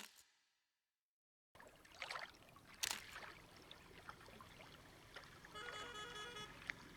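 Faint water lapping with a few soft paddle splashes from a rowed boat on a lake, starting after a second and a half of silence.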